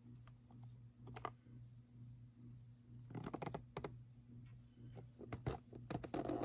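Plastic blister-pack packaging of a carded diecast car being handled and turned in the hand: scattered light clicks and taps, a cluster about three seconds in and more near the end, over a steady low hum.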